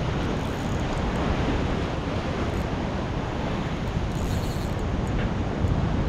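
Sea waves washing against a rock ledge, with wind buffeting the microphone; a steady, even rush with no distinct events.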